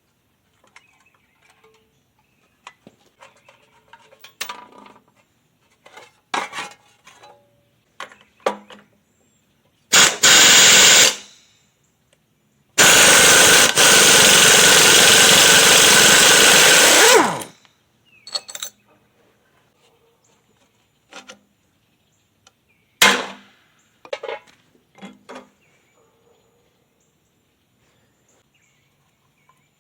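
Small Briggs and Stratton mower engine being pull-started: a short loud burst about ten seconds in, then it fires and runs loudly for about four seconds before cutting out. Clicks and knocks of handling the mower come before and after, with a sharp knock near the end.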